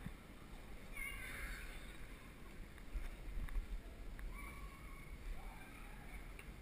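Low rumble and wind buffeting on a bicycle head-cam while riding over cobblestones, with a few faint brief higher-pitched sounds about a second in and again around four seconds in.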